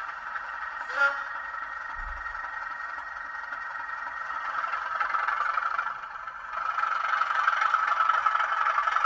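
Digital sound of a class 37 diesel locomotive's engine, played from an ESU LokSound V5 decoder through the small speaker of an N gauge model, so it comes out thin with no low end. A brief sharp sound comes about a second in, and the engine grows louder from about six and a half seconds in.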